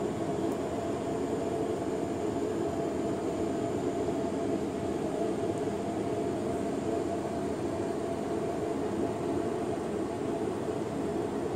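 A steady mechanical drone that does not change, with a faint high-pitched whine above it.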